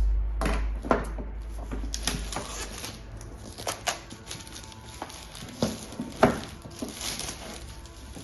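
Hands opening a cardboard keyboard box and handling its packaging: irregular taps, knocks and rustles of cardboard. A low rumble stops about two seconds in.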